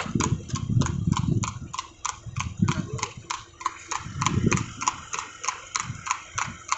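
Horse trotting on an asphalt road while pulling a two-wheeled cart: a steady clip-clop of hooves, about five strikes a second, with a low rumble now and then.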